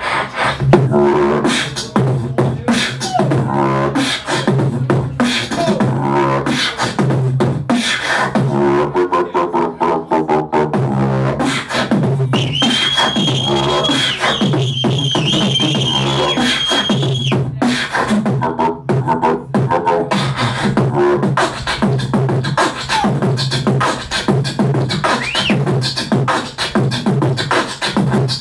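Human beatboxing: rapid vocal drum clicks and kicks over a hummed bass line, with pitched vocal sounds and one high note held steady for about five seconds around the middle.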